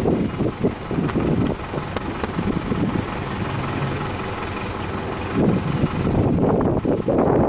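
Subaru Legacy B4 2.0i B-Sport's EJ20 flat-four idling, heard at the exhaust tailpipe. Wind buffets the microphone, in gusts that grow louder for the last two seconds.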